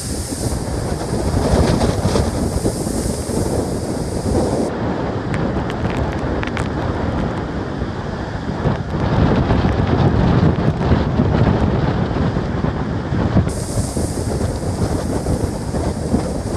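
Strong wind buffeting the microphone over the rush of a rough, stormy sea against a ferry, swelling louder about nine seconds in.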